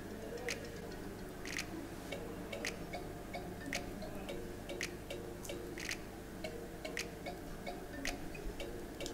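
Soft background music with a light, clock-like ticking beat, sharp ticks every half second to a second over faint short notes.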